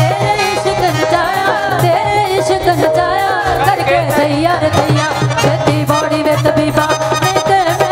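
Two women singing a Sufi devotional song as a duet, their voices bending through long ornamented phrases, over keyboard and tabla accompaniment with a steady drone and beat.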